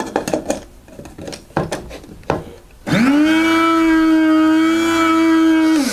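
Clicks and knocks as the clear lid is fitted onto a small electric blade coffee grinder. About three seconds in, the grinder's motor spins up and runs with a steady whine for about three seconds, blending loose fur into fly-tying dubbing, then stops.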